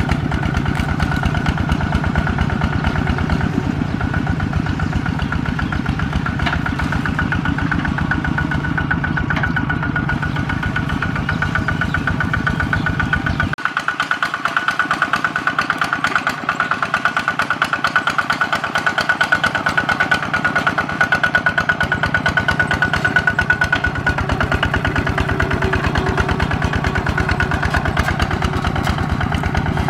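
Kubota ZT140 single-cylinder diesel engine of a two-wheel walking tractor, running steadily under load while it pulls a disc plough, with a fast, even chugging beat. About halfway through the sound changes abruptly and its deep bottom end drops away.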